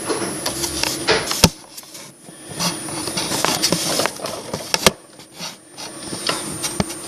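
Handling noise from a plastic toy slime-making station and its storage pods as water is poured in, with sharp plastic clicks and knocks, the loudest about one and a half and five seconds in.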